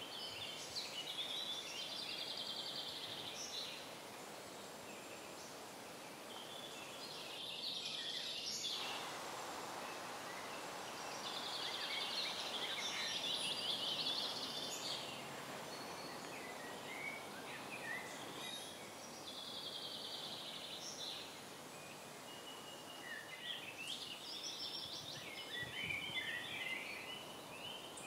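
Woodland birdsong: several songbirds singing varied chirps, with a fast high trill that comes back every several seconds, over a steady background hiss.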